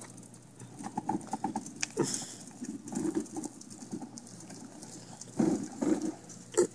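Bicycle trailer loaded with a heavy file cabinet being towed over asphalt: irregular knocks and clatter from the trailer frame and its load, with a cluster of louder thuds near the end.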